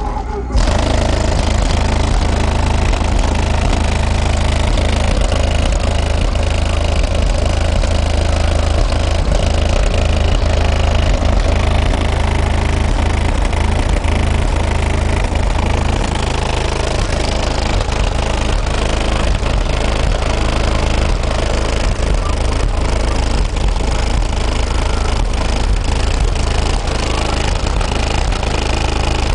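Very loud, steady deep bass from a Chevrolet's car-audio subwoofers, played for sound pressure, coming in about half a second in, with a dense clatter of fast buzzing and rattling over it.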